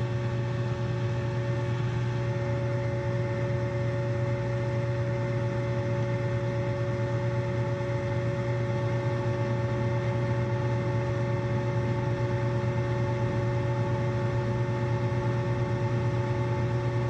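Packaged rooftop HVAC unit running in second-stage heat during a jumpered test, a steady hum with several held tones that does not change.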